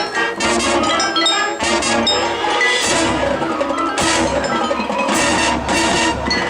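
Marching band playing, with the front-ensemble mallet percussion (glockenspiel, marimba, chimes) ringing out over the band along with sharp percussion strikes.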